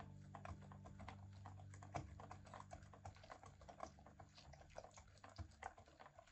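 Faint, irregular light clicks and taps of kitchen utensils being worked.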